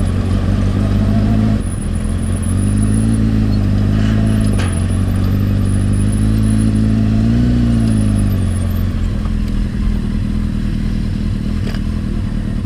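Honda Fireblade's inline-four engine running at low revs as the bike creeps along, its pitch rising and falling gently a few times.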